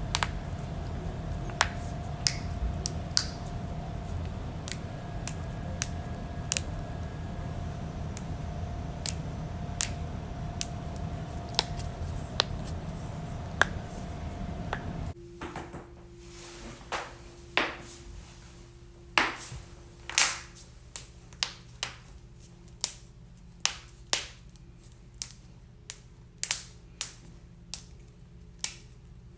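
Human joints cracking: a series of sharp pops and clicks, scattered in the first half and coming about once a second in the second half. A steady background hum runs underneath and changes pitch about halfway through.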